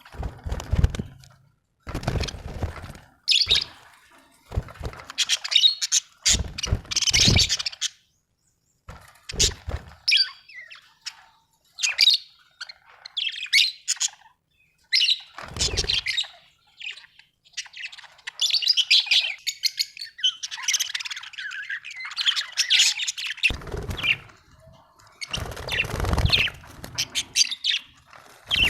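Budgerigars chirping and warbling in irregular bursts of short, high notes, with a few low thuds underneath.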